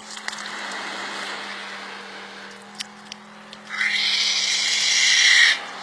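Water spraying with a loud hiss from a water-fed pole's jet for nearly two seconds, starting sharply past the middle and cutting off suddenly, over a steady low hum.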